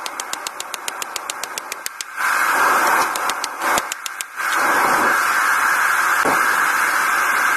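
Hand hammer striking hot steel on an anvil in quick runs of blows during forging: one run in the first two seconds and a short one around the middle. Between and after the runs there is a steady rushing roar, as from the forge burner.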